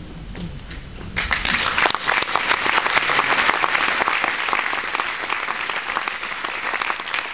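Cinema audience applauding, the clapping breaking out about a second in and continuing steadily.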